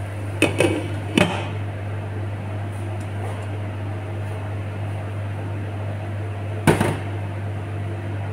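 A glass lid clinks down onto a metal cooking pot about a second in, with another sharp knock near the end, over a steady mechanical hum.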